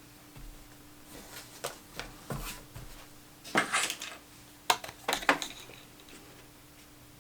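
Scattered clicks, taps and short rustles of denim and small hard pieces being handled at a sewing machine, the strongest few in quick succession in the second half. A faint steady hum runs underneath.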